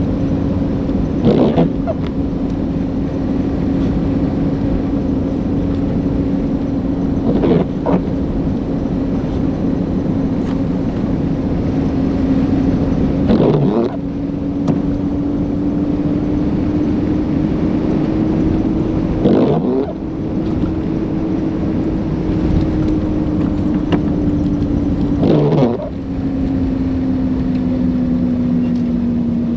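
Car driving on a snowy road, heard from inside: a steady engine and road drone whose pitch drifts slightly up and then down, with a short swish repeating about every six seconds.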